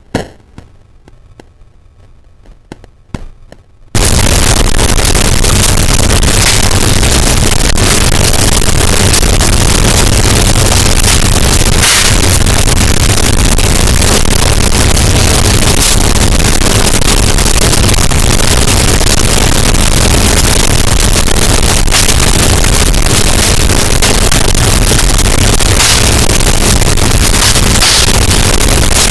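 Fireplace crackling run through a bitcrusher, quiet with a few sharp pops, then about four seconds in it jumps abruptly to an extremely loud, heavily clipped 'earrape' distortion of the same fire sound: a constant wall of harsh noise.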